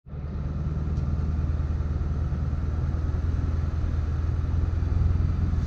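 A vehicle driving along, with a steady low engine and road rumble.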